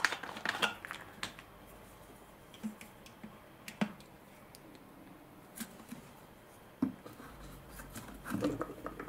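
Scattered small clicks, taps and scratches of hands handling small tools and items on a workbench, with a faint low hum coming in near the end.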